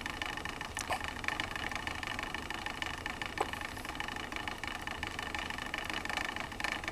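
A newborn baby hiccuping: two small, short hiccups about two and a half seconds apart, over a steady mechanical hum.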